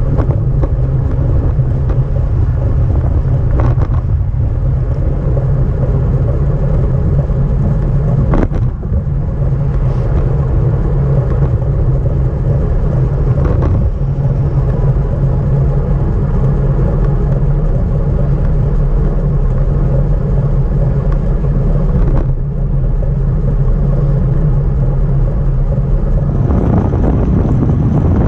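Steady rush of wind and road rumble on a camera strapped to a road bicycle being ridden, with a handful of sharp knocks from bumps in the road.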